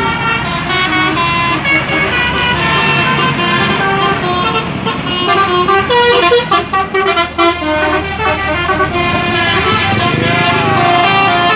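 Bus 'telolet' musical horn (Basuri type) playing a tune of quick stepped notes, with a choppy, stuttering run of notes about halfway through.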